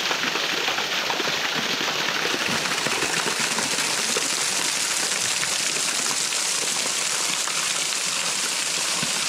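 Small waterfall splashing down a rock face close up: a steady, hissing rush of falling water.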